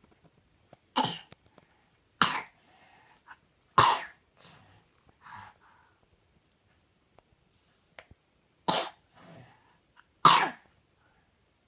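A child coughing at night: five loud single coughs in two bouts, three in the first four seconds and two near the end, with fainter breaths after some of them.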